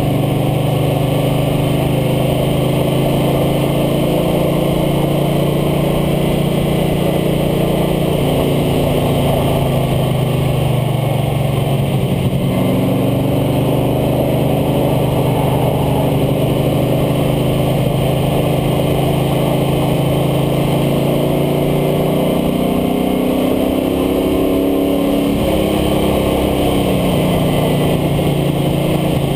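International Harvester Scout II's engine running hard at track speed, heard from the front of the truck. Its pitch falls and rises with speed, dipping around eleven seconds in and again near twenty-five seconds before climbing back up.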